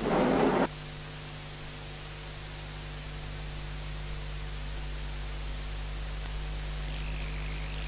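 Steady hiss with a low electrical hum, the recording's noise floor, after a short noisy burst that stops abruptly under a second in.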